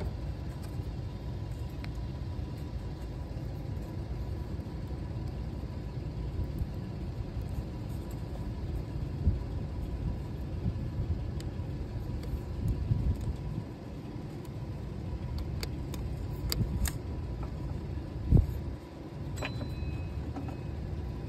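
Steady low background rumble with scattered light clicks and metallic taps as a serpentine belt is worked off its pulleys by hand, a ratchet wrench holding the spring tensioner released. One dull knock near the end.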